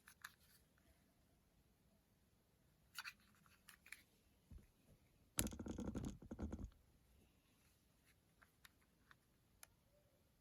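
Handling noise from a mobile phone: scattered faint clicks and scratches, with a louder rough scrape lasting about a second beginning about five seconds in. No ringtone sounds yet.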